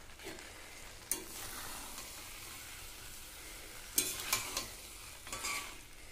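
Boiled vegetables and spice paste sizzling in hot oil in a metal kadai while a metal spatula stirs them, scraping against the pan a few times. The sizzle is the masala-frying (kashano) stage, the paste having already released its oil.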